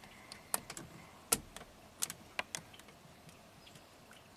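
A scatter of small sharp plastic clicks and taps as a 5 amp fuse is worked out of a truck's under-dash fuse panel by hand, the loudest about a second and a half in, the clicks thinning out after about three seconds.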